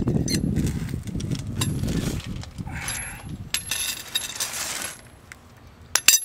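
Small metal parts clinking and rattling as they are handled at a car's front wheel hub, over a low rumble that fades after about two seconds and a hissing rustle in the middle. One sharp metallic clink near the end.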